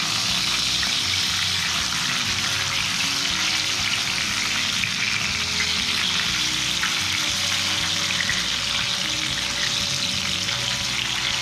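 Pieces of katla fish shallow-frying in hot oil in a kadai, a steady sizzling hiss throughout.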